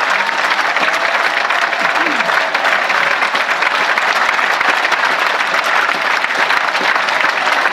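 Concert audience applauding after a song: dense, steady clapping from a large crowd.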